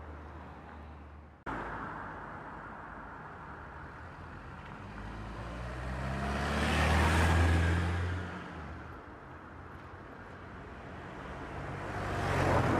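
Road traffic: a car passes close by, its engine and tyres swelling to a peak and fading away, and another vehicle approaches near the end. The background changes abruptly about a second and a half in.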